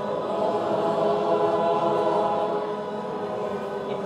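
An audience singing together, holding a long sustained "oh" on several different notes at once in harmony, like a choir.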